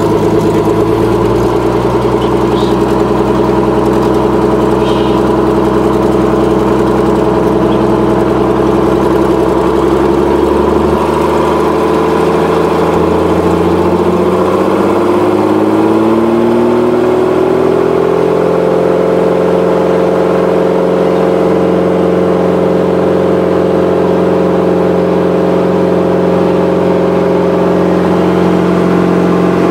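Ryan Navion's flat-six piston engine and propeller, heard from inside the cockpit. It runs steadily at low power, then about a third of the way through rises in pitch over several seconds as the throttle is opened for the takeoff roll, and holds steady at the higher power.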